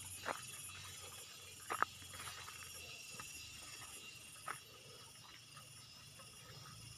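Faint insect chorus in the hillside vegetation: a steady high trill with a higher buzz pulsing about every two-thirds of a second. A few short sharp clicks, the loudest about two seconds in.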